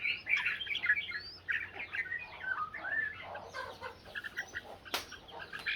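Red-whiskered bulbuls singing against each other in a song contest: rapid, overlapping chirps and whistled phrases. A single sharp click comes about five seconds in.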